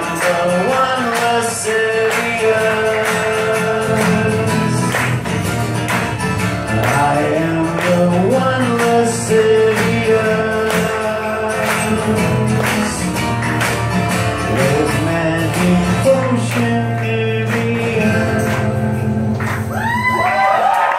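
Live acoustic rock: two acoustic guitars strummed under a male lead vocal holding long sung notes. Near the end the song finishes and the crowd starts cheering.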